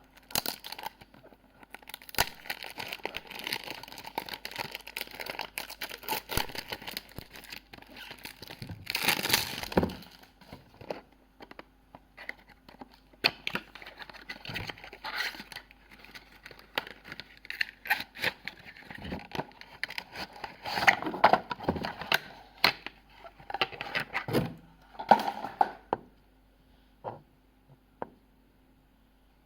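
Perfume packaging being torn open and crumpled by hand, a run of crinkling, tearing and crackling with sharp clicks, stopping a few seconds before the end apart from a few single clicks.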